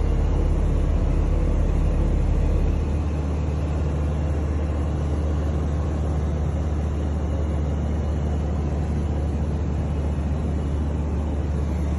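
Light aircraft's engine and propeller running steadily in flight, a constant low hum under an even rushing noise.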